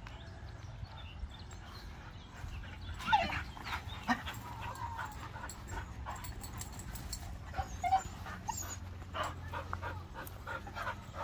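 Dogs whining eagerly in short, rising cries, several times, with the loudest about three seconds in.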